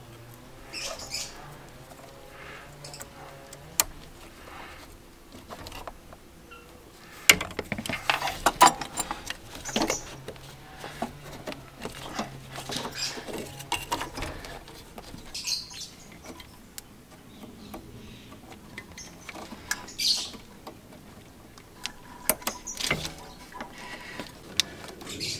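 Hand and tool work in a car's engine bay: scattered metal clicks and clanks, loudest about seven to ten seconds in, with short squeaks now and then as parts and fittings are handled.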